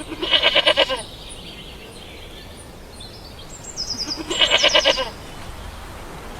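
A ram bleating twice, each bleat wavering and about a second long, the second coming about three and a half seconds after the first.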